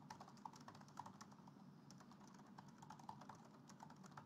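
Faint typing on a Mac keyboard: irregular key clicks, a few a second.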